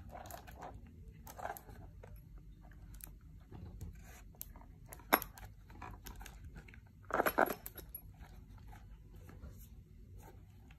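Cardboard retail box handled by hand: scattered light taps and rubs of fingers on the box, a sharp click about five seconds in, and a brief burst of cardboard scraping about seven seconds in.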